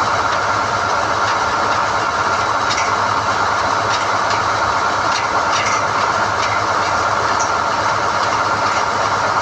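SDH-1600 core drilling rig running steadily while hoisting NQ drill rods, with a few light metallic clicks scattered through the noise.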